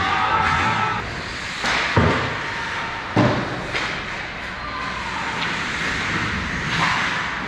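Ice hockey play close to the goal: two hard thuds about a second apart, then a lighter knock, over a steady hiss of skates on the ice.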